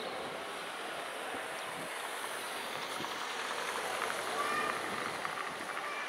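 Outdoor crowd ambience: a steady murmur of many distant voices, a little louder with a few short higher sounds about four to five seconds in.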